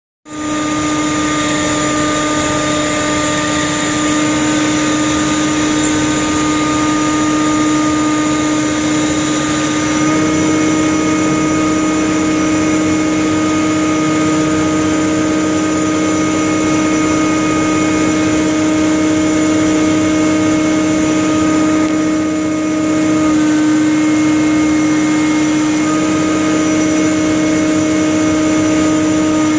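A fishing trawler's deck machinery runs steadily as the net drum hauls the trawl net aboard: a loud, constant mechanical hum with a strong low tone. The tone shifts about ten seconds in, and again about two thirds of the way through.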